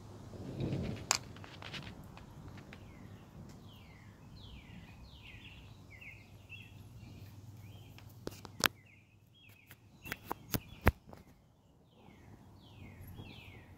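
A songbird calling in quick series of short, downward-slurred notes, breaking off for a few seconds in the middle and starting again near the end. Several sharp clicks come about two thirds of the way in, the loudest sounds here.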